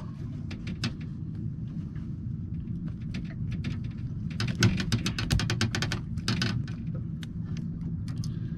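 A steady low rumble from a small boat at sea, with scattered clicks. About four and a half seconds in comes a burst of rapid clicking and rattling, and a shorter one follows near six and a half seconds, as a sea bream is taken off the hook by hand in a towel.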